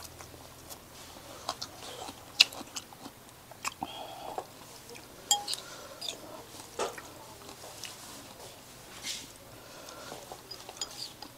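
A person chewing a mouthful of noodles close to a clip-on microphone, with irregular clicks and taps of a spoon and chopsticks in the bowl.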